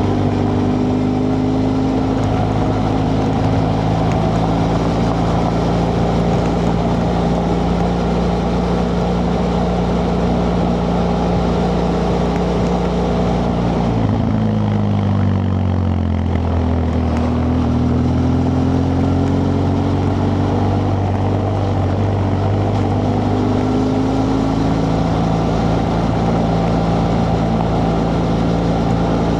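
BMW F 800 GS parallel-twin engine running on the original exhaust while the bike rides along. About halfway through the engine note drops as the bike slows, then climbs gradually again as it picks up speed.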